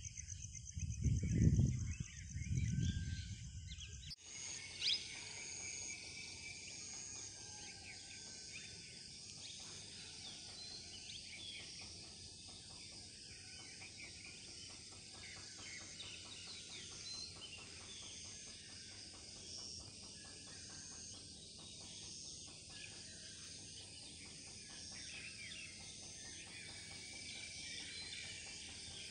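Steady high chirring of insects, with scattered bird chirps and calls. For the first four seconds loud low rumbling covers it, then that cuts off abruptly.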